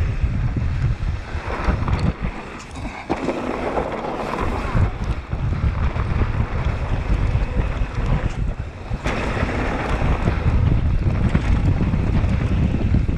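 Mountain bike riding fast down a dirt trail, heard from a camera on the rider: wind rumbling on the microphone over tyre noise on dirt, with scattered knocks and rattles from bumps.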